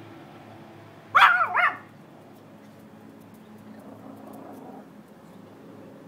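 Chihuahua barking twice in quick succession: two short, high-pitched yaps about a second in.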